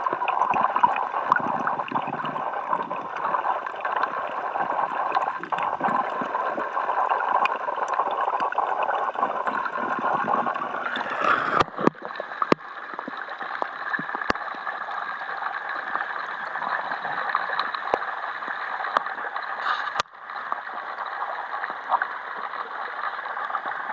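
Steady gurgle and rush of water in a trout rearing tank, heard from underwater at first. About halfway through the sound turns brighter and hissier as it is heard from above the surface, and a few sharp clicks follow.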